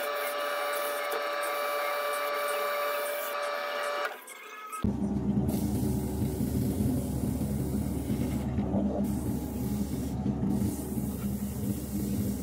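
Wood lathe running with a wooden bowl spinning on it, a steady whir. About four seconds in the sound breaks off and comes back as a lower, fuller hum.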